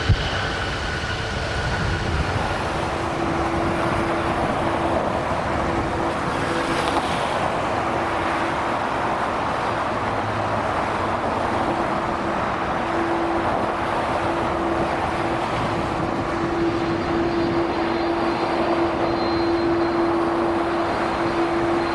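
Jet airliner engines. A Boeing 737 is rolling out on the runway after landing, and then an Airbus wide-body airliner taxis past with its turbofans at idle. The idle makes a steady rush with a low steady hum that comes and goes, and a faint high whine joins it near the end.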